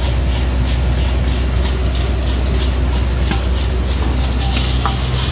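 Shaktiman multi-crop thresher running steadily with a deep hum while threshing castor, with shelled castor seeds pouring in a hissing stream from its outlet chute into a metal tub. A faint rattle repeats about three times a second.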